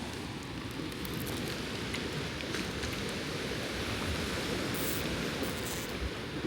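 Steady wash of gentle surf on a sandy beach, an even rushing noise without breaks.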